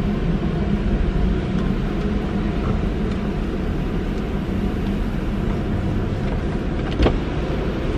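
Steady low rumble of a car idling, heard from inside the cabin, with one sharp click about seven seconds in.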